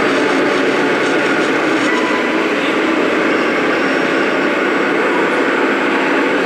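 Radio-controlled scale truck running, giving a steady, unbroken mechanical noise.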